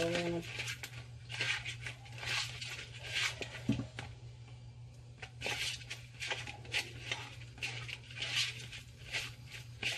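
Hands rubbing and turning raw seasoned shrimp in a plastic bowl: irregular wet squishing and rustling, a stroke every half second or so, over a steady low hum.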